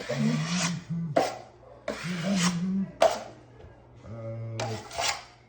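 A drywall knife scraping and smoothing five-minute joint compound in a series of strokes, about five passes, as the mud is beginning to set hard.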